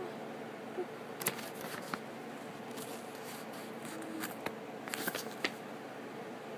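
Sheets of paper rustling and crackling in short bursts as they are handled and lifted close to the microphone, over a faint steady hum.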